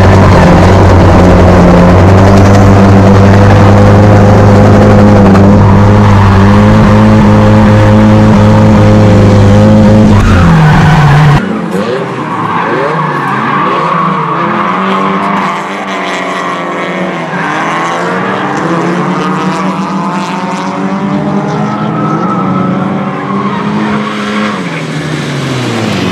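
Nissan S-chassis drift car's four-cylinder engine heard from inside the cabin, held at high, nearly steady revs and loud, dropping just before a sudden cut about eleven seconds in. After that, drift cars' engines rev up and down with tyre squeal as they slide, alone and then in tandem.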